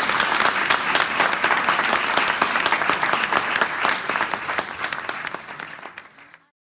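Audience applauding, a dense spread of many hands clapping that fades away over the last two seconds and stops shortly before the end.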